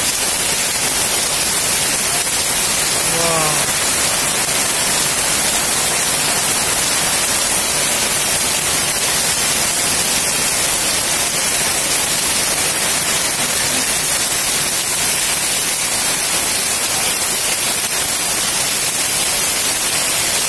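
Heavy rain pouring down on trees, a yard and a roof, a loud steady hiss that does not let up. A short faint falling call sounds once about three seconds in.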